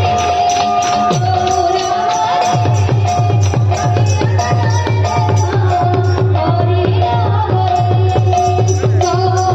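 Kirtan drumming: a hand drum plays a few deep strokes that fall in pitch, then settles into a fast, even beat, with small cymbals ticking along and a held drone tone over the top.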